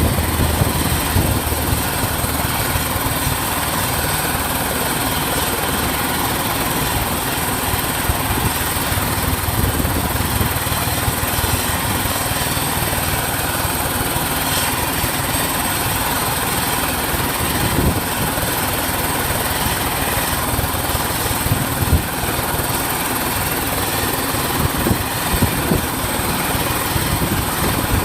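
Helicopter running close by: a steady, loud rotor and engine noise with a constant high whine over it.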